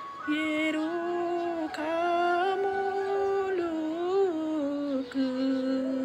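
A woman singing a Garhwali folk song, drawing out long held notes with wavering turns and short breaks between phrases.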